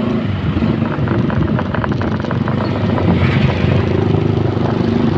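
A motor vehicle engine running steadily, with a quick run of clicks about a second in.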